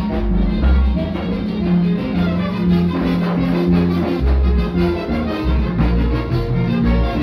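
Yucatecan jarana music from a jarana band led by brass and woodwinds, with sustained melody notes over a steady bass beat.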